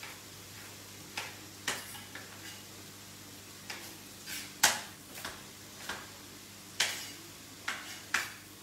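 Knife chopping carrots into sticks on a plastic chopping board: about a dozen irregular knocks of the blade hitting the board, one louder stroke a little past halfway.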